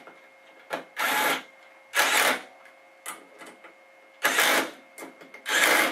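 Small cordless screwdriver running in four short bursts of about half a second each, driving in the bolts that hold the nose cone to the water pump pulley, with small clicks between the runs.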